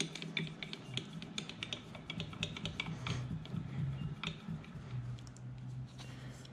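Rotary table on a mill drill being hand-cranked round, giving an irregular run of small metallic clicks and ticks over a low steady hum that grows stronger near the end.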